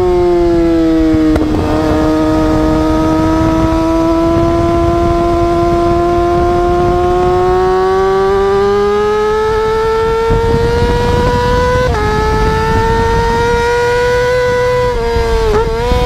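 Yamaha YZF-R6's inline-four engine under way: the revs fall in the first second, then climb slowly and steadily, drop sharply at a gear change about twelve seconds in, and climb again before a brief dip and flick near the end. A low even rush of wind and road noise sits under the engine note.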